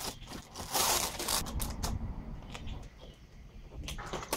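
Plastic bag crinkling and rustling as it is pulled off a lawn mower's engine, loudest in the first second and a half and then fading, with a couple of sharp crackles near the end.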